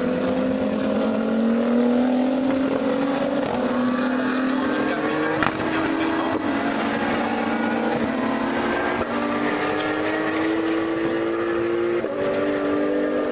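GT race car engines accelerating past. Their pitch climbs and drops back again and again as the drivers change up through the gears. A sharp click comes about five and a half seconds in.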